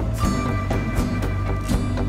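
Background music with a steady beat: held tones over regular drum hits.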